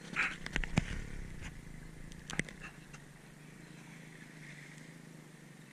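Several sharp clicks and knocks in the first two and a half seconds, from gear or the camera being handled, then a faint steady low hum.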